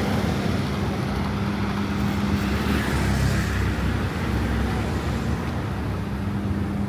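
City street traffic: engines and tyres of passing vehicles, with a steady low hum underneath.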